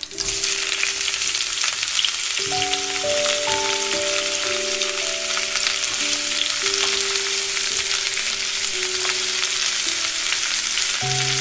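Food frying in a pan: a dense, steady sizzle and crackle, with a soft melody playing underneath.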